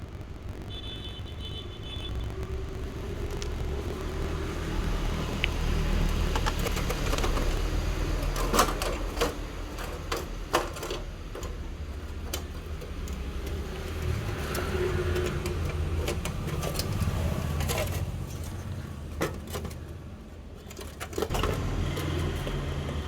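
Scattered metal clicks and knocks of hand tools and parts being worked on a rusty bicycle's crank and bottom bracket, over a steady low rumble.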